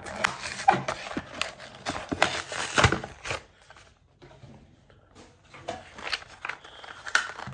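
Cardboard-and-plastic retail packaging of a small diecast toy car being pulled and torn open by hand: crackling, scraping and tearing, with a quieter pause about halfway through before more handling.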